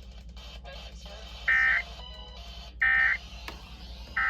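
Emergency Alert System end-of-message signal: three short, identical bursts of SAME digital data, a harsh two-tone buzz, repeated about every second and a third. It marks the end of the tornado warning broadcast. A steady low hum runs underneath.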